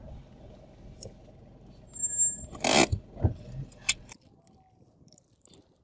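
Outdoor street ambience with a steady low traffic rumble. A short loud hiss comes about two and a half seconds in, with a few knocks around it. The ambience cuts off abruptly about four seconds in.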